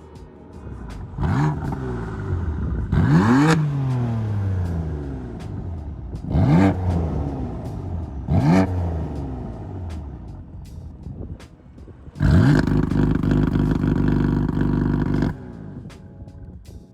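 BMW F80 M3's S55 twin-turbo inline-six revving through an Active Autowerke single mid pipe with the exhaust valves open. It blips the throttle four times, each rev rising sharply and falling back to idle, then holds a steady higher rpm for about three seconds before dropping back. Scattered pops run through the exhaust note.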